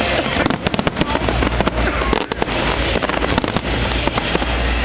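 Fireworks display going off in a dense volley: many sharp bangs and crackles in quick succession over a steady low rumble.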